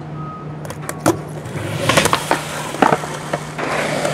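Skateboard wheels rolling on concrete and ramp, louder from about two seconds in, with several sharp clacks of the board.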